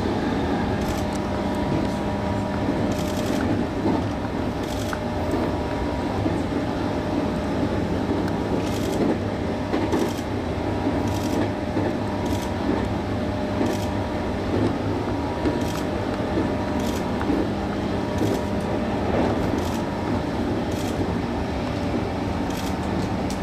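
Running noise of a JR West 221 series electric train at speed, heard from on board: a steady noise with a steady hum, and light clicks about once a second.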